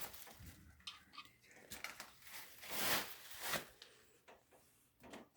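Faint scattered clicks and rustling as small plumbing parts are handled, with two brief louder rustles about three seconds in.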